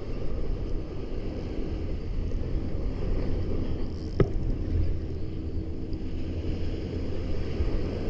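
Steady low rumble of wind and surf on the microphone, with a Penn spinning reel being cranked against a fish and one sharp click about four seconds in.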